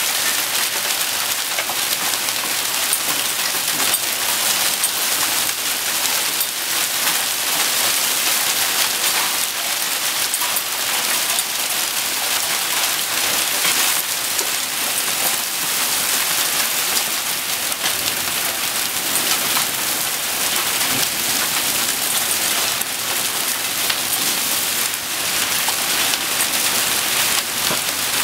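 Hailstorm: hail and rain coming down hard on a wooden deck and railing, a dense, steady clatter of countless small impacts.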